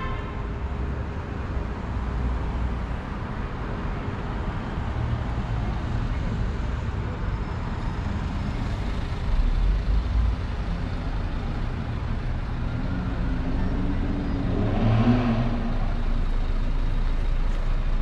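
City street traffic: cars driving past with a steady low rumble of engines and tyres, one vehicle passing closer and louder about fifteen seconds in.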